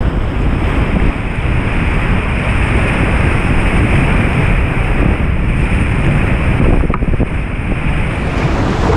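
Whitewater rapids of a mountain river rushing loudly around a kayak, picked up by a camera just above the surface, with splashes and wind buffeting the microphone.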